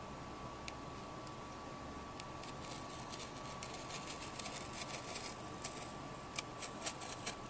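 Utility knife blade scoring a warranty sticker on a modem's metal case: a run of faint scratches and clicks, densest in the middle, with sharper separate ticks near the end. A faint steady high whine sounds underneath.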